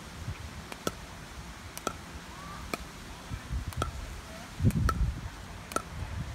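Pickleball dink rally: sharp hollow pops of paddles striking the plastic ball, about one a second, six in all, alternating between the two players. A brief low rumble comes about two-thirds of the way through.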